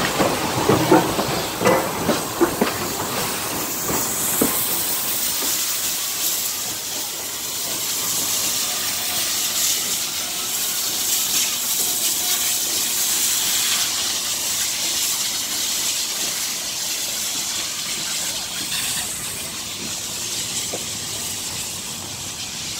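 Rail cars rolling past with sharp wheel clicks for the first couple of seconds, then a steady hiss of steam from Southern Pacific 4449, a 4-8-4 steam locomotive.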